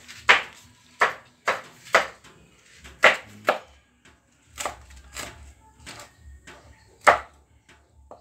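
Kitchen knife chopping garlic cloves on a wooden cutting board: about ten sharp, irregular chops, some coming in quick pairs, with short pauses between.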